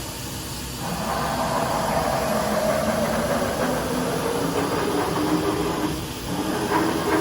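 Axis of a Fadal VMC6030 CNC vertical machining center being jogged: the servo drive whirs and the steel way covers slide. It starts about a second in with a slowly falling tone, stops briefly near six seconds, then starts again with a rising tone.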